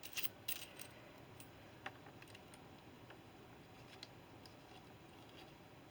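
Small hard parts of a soldering iron tool kit clinking and clicking as they are handled and fitted into the case: a quick run of clinks in the first second, then a few single soft clicks.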